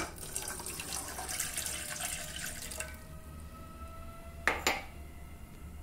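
About a cup of water poured into a cooking pan, splashing for nearly three seconds, then two sharp clinks about four and a half seconds in.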